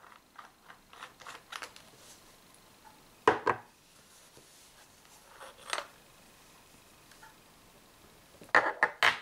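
Handling clicks and knocks from an Umarex HDS68 launcher and its clip-on ammo holder being turned over in the hands: light scattered clicks, a sharper knock about three seconds in, and a quick run of louder knocks near the end.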